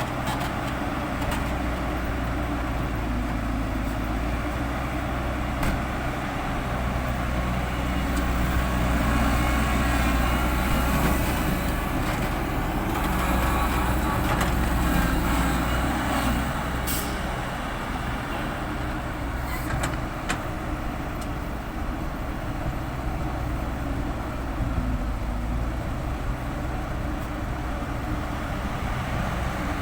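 Heavy diesel earthmoving machinery running: a steady low engine drone that grows louder for several seconds in the middle as the engines work harder, with a few brief sharp sounds.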